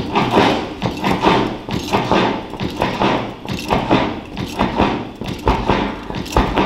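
Dance music with a strong, regular beat and heavy low thumps.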